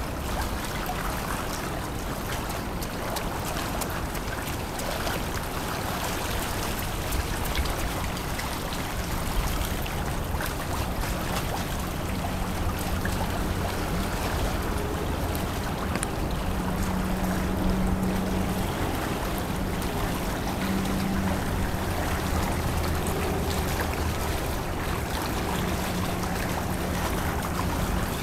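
River water washing and lapping in a steady rushing wash, with a low drone underneath that shifts in pitch now and then.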